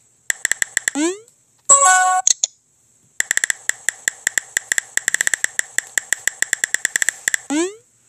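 Simulated phone-keyboard typing clicks from a chat-story app. A short run of taps ends in a quick rising blip as a message sends, and a brief bright chime follows. Then comes a long, fast run of key clicks lasting about four seconds, ending in another rising send blip.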